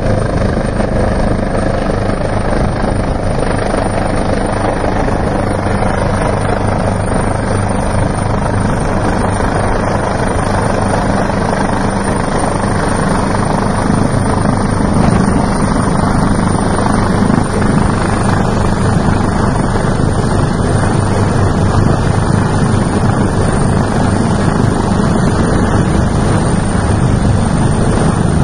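Rescue helicopter hovering close overhead, its rotor and engines running steadily; the sound grows louder about halfway through as it comes in to hover just above the ground.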